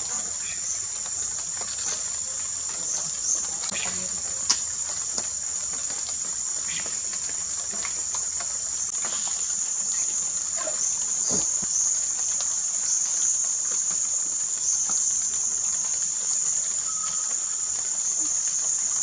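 Steady high-pitched drone of an insect chorus, with a few faint short calls and clicks scattered through it and one sharp click about four and a half seconds in.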